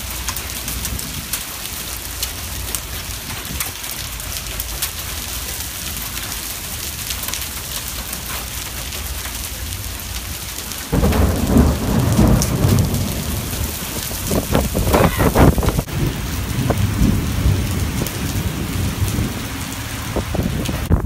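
Heavy thunderstorm rain mixed with dime-sized hail pelting a concrete walkway and parking lot, a steady hiss. About halfway through, a loud, low, uneven rumble sets in and goes on to the end.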